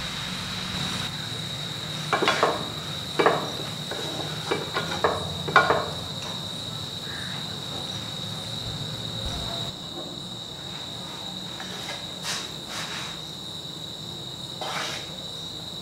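Sliced onions bubbling and sizzling in a non-stick frying pan, with a wooden spatula scraping and knocking against the pan several times in the first few seconds. It goes quieter about ten seconds in, then come a few scrapes as the onions are spooned out, under a constant thin high-pitched whine.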